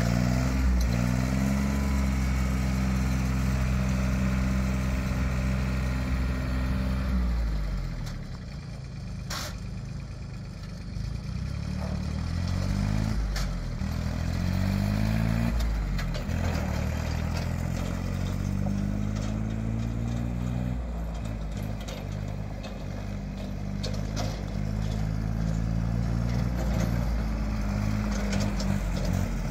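A John Deere 670 compact tractor's three-cylinder diesel engine runs at high revs for the first seven seconds or so, then drops back. It then revs up and eases off several times as the tractor is driven around. There is a single sharp click about nine seconds in.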